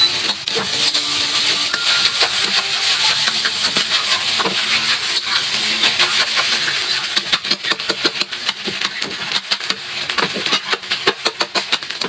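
Food sizzling in a frying pan: a steady hiss, then a dense run of sharp clicks and scrapes through the second half as the food is stirred.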